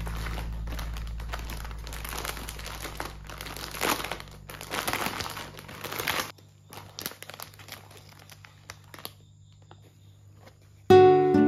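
Plastic bag of melamine foam sponge cubes crinkling for about six seconds as it is handled and opened. A few light taps follow as the foam cubes are set down on a wooden floor, and guitar music starts near the end.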